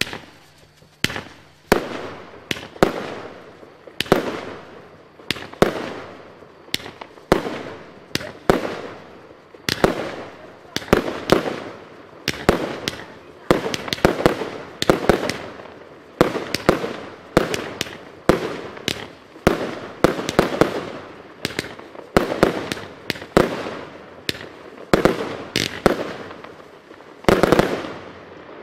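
A Lesli "Stroboboom!" 36-shot 20 mm salute cake firing: shots launch one after another, each followed by a loud titanium flash-bang report, about one or two a second. A last loud group of reports comes near the end.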